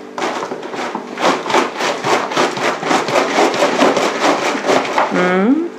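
A large capped plastic bottle packed with pork chunks, onion and fizzy mineral-water marinade is shaken hard by hand, giving about four sloshing, knocking shakes a second. Near the end a voice gives a short rising whoop.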